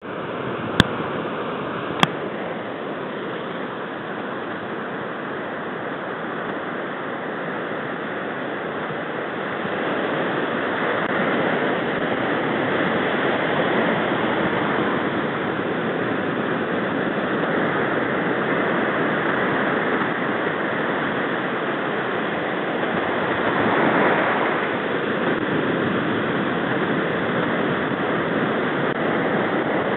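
Ocean surf: a steady rush of breaking waves and foaming white water washing around the angler's legs, growing louder about a third of the way in, with one louder surge late on. Two sharp clicks sound within the first two seconds.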